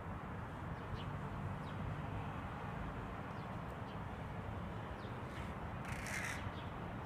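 Steady outdoor background noise with faint short bird chirps, and one short harsh call about six seconds in.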